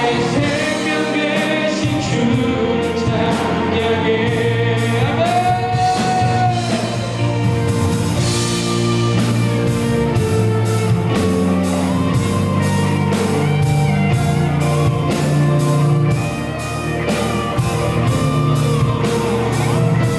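Live worship band playing a rock-style song with singing over drums, bass guitar, electric guitar and keyboards. A sung note is held for a couple of seconds partway through.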